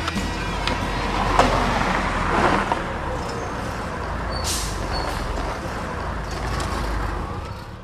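City bus engine running as the bus pulls past, with a short hiss of its air brakes about four and a half seconds in. A sharp knock sounds about a second and a half in, and the sound fades out at the very end.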